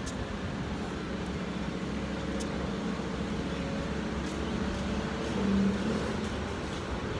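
Steady road traffic noise with a low engine hum, swelling briefly about five and a half seconds in.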